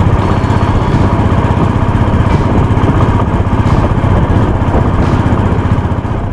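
Motorcycle engine running steadily under load, heard from on the bike, working hard on an uphill climb at high altitude.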